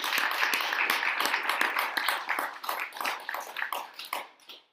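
A small congregation applauding, many separate hand claps that thin out and die away near the end.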